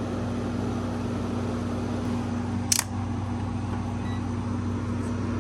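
Window air conditioner running steadily just after start-up, its compressor and fan giving an even hum and rush of air. A single sharp click sounds about halfway through.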